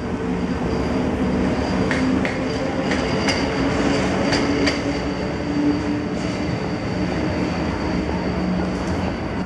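Electric passenger train with a red locomotive running past alongside the platform. Its wheels rumble and give a few clicks, under a steady hum from the train's electrics.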